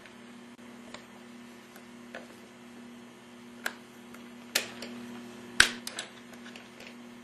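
SERA Feed A Plus automatic fish feeder working: a scattered run of sharp mechanical clicks and ticks over a steady low hum, the loudest clicks about four and a half and five and a half seconds in.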